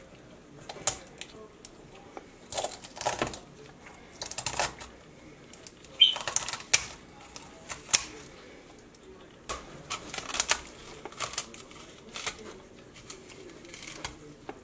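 Kitchen shears snipping and crunching through a raw whole chicken along its backbone: a run of irregular sharp snips and bone cracks, with a brief squeak about six seconds in.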